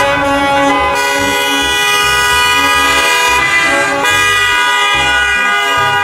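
School bus horn sounding in one long, unbroken blast, a steady chord of tones.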